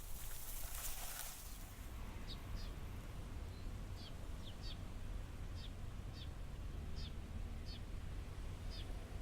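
A bird repeating short, high, downward-sliding chirps, often in pairs, about once or twice a second, over a steady low rumble. A brief dry rustling is heard at the start.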